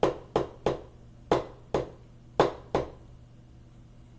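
A string of sharp clicks, seven in all and mostly in pairs, over about three seconds, then a pause. A faint steady low hum sits underneath.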